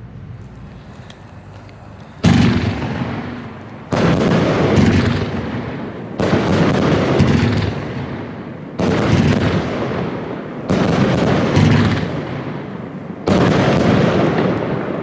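Funke Silberpalmen Bunt 25-shot fireworks cake firing: about seven sharp bangs, roughly one every two seconds, starting about two seconds in. Each bang trails off into a long fading rumble as the shell bursts into a silver palm.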